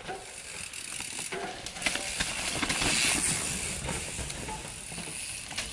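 Downhill mountain bike going through a corner on loose dirt: tyres rolling and sliding in a noisy hiss that builds to a peak about halfway and fades, with scattered clicks and rattles from the bike.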